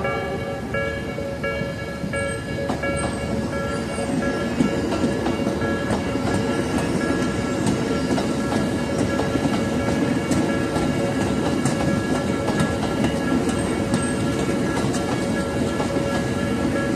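Tokyo Metro 13000 series electric train running past, its wheels clacking over rail joints from about two seconds in, under a steady rumble. Several steady tones of different pitches sound throughout.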